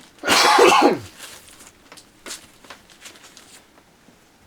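A single loud cough about half a second in, followed by faint clicks and rustling from handling.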